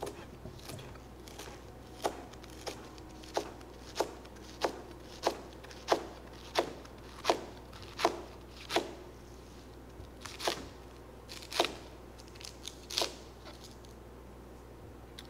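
Chef's knife chopping rolled collard green leaves on a plastic cutting board: a steady run of crisp cuts, about one every two-thirds of a second, then a few more widely spaced cuts that stop near the end.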